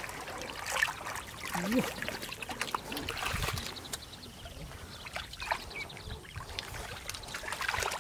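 Shallow muddy water trickling and splashing around a plastic basket being scooped through it by hand, with small clicks and drips.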